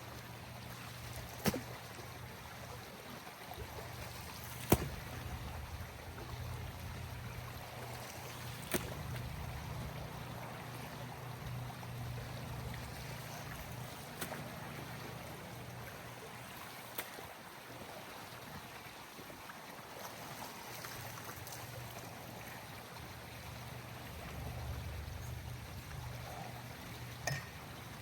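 Pool water trickling and sloshing over a steady low hum, with several sharp knocks spread through, during pool cleaning.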